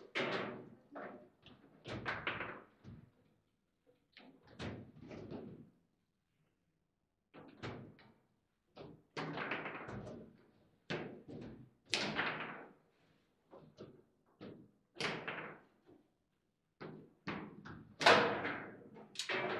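Foosball table in play: an irregular run of sharp knocks and clacks as the ball is struck by the figures on the rods and rebounds off the table, with a short lull about six seconds in and the loudest hit near the end.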